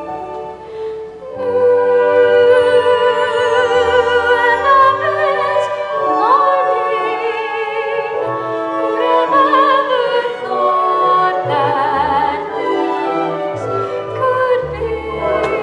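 Live stage-musical music: a pit orchestra playing while a singer holds long notes with vibrato.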